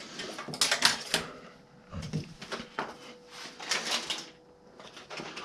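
Irregular light clicks and rattles of small hard objects being handled, with a soft low thump about two seconds in.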